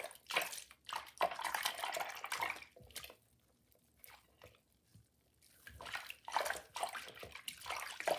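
A hand swishing and scrubbing soapy water inside a plastic pencil box, in splashy bursts, with a quieter pause midway.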